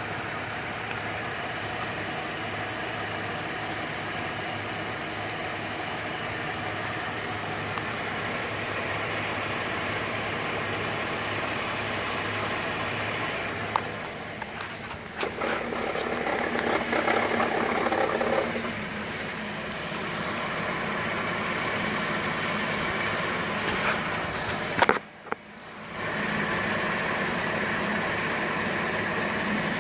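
2008 GMC Acadia's 3.6-litre V6 idling with a rattle, which the owner takes for a failing pulley bearing. The sound grows louder for a few seconds about halfway through and cuts out briefly near the end.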